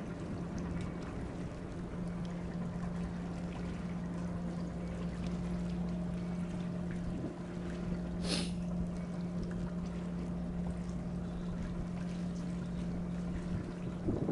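Boat engine idling with a steady low hum. A brief hiss comes about eight seconds in.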